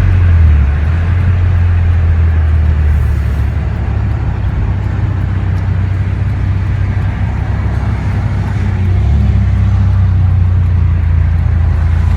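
Car engine and loud exhaust droning steadily, heard from inside the cabin while driving, over road noise. The drone eases off a little in the middle and picks up again near the end.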